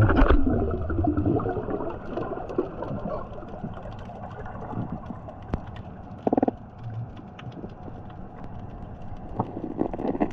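Underwater ambience picked up by a diver's camera: a muffled, rumbling wash with scattered faint clicks, loudest at the start, and a brief buzzing tone about six seconds in.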